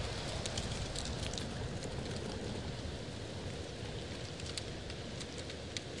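Wind rustling through leaves: a steady rushing hiss with scattered light crackles, over a low rumble, slowly growing quieter.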